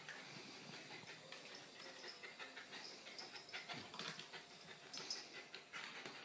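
A dog and a cat play-fighting on a carpeted cat tree: faint scuffling and a few soft knocks of paws on the platforms, with the dog's soft breathing.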